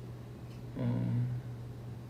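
A man's short hummed "mm", held at one pitch for about half a second, over a steady low background hum.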